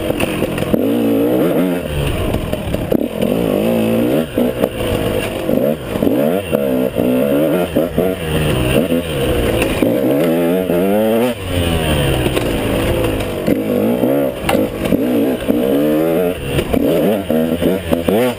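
KTM 150 XC two-stroke single-cylinder dirt bike engine, revving up and dropping back again and again as the throttle is worked through tight turns, with a few knocks from the bike over bumps.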